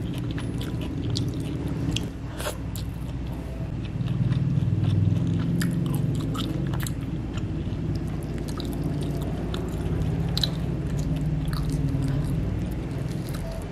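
Close-miked chewing and mouth smacks of someone eating fried chicken with rice and sambal by hand, with frequent small sharp clicks.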